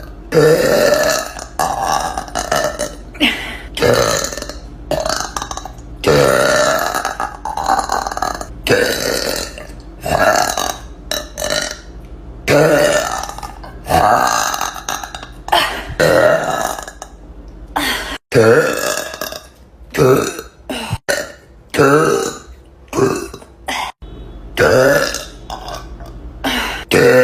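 A young woman burping loudly, one deliberate belch after another, about twenty in all. The first ones are long and drawn out; after about two thirds of the way through they come shorter and quicker.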